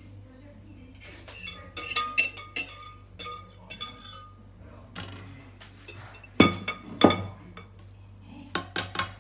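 A metal whisk clinks and taps against a stainless steel mesh sieve and steel pot in short clusters. Two heavier metallic knocks come a little past the middle.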